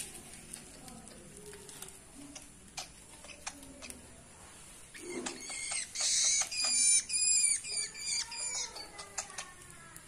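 Young long-tailed shrike (cendet) giving a rapid series of harsh, squeaky, high-pitched begging calls about halfway in, while being hand-fed.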